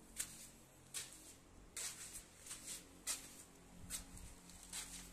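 Footsteps climbing stone steps: a run of short scuffing treads, roughly one every half second to a second, over a faint steady hum.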